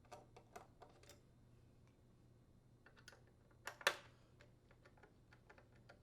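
Faint scattered clicks and small metal taps of a T25 Torx bit working out the screws that hold a dryer door's hinge plate, with two louder sharp clicks close together a little under four seconds in.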